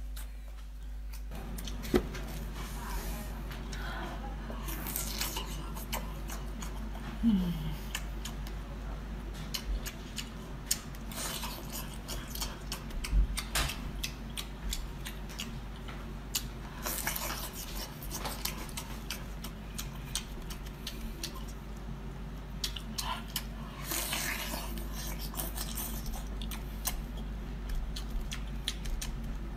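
Close-miked eating sounds: a person chewing and biting food, with a few louder crunchy bites spaced several seconds apart and scattered small clicks.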